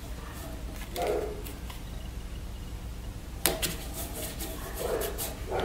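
Turner's tape being handled and pressed onto a wooden waste plate: small handling clicks and a short crackle about three and a half seconds in, over a steady low hum.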